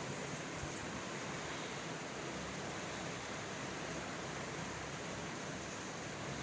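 Steady rushing of flowing floodwater, an even noise with no breaks.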